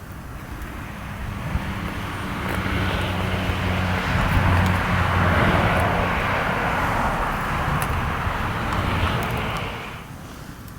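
A vehicle passing by, its engine hum and noise swelling to a peak about halfway through and fading away near the end.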